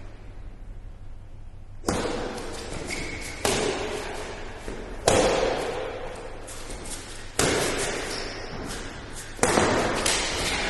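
Badminton rally in a large indoor hall: five sharp racket strikes on the shuttlecock, one every one and a half to two seconds, each ringing out in the hall's echo. Fainter clicks and a couple of short high squeaks come between the strikes.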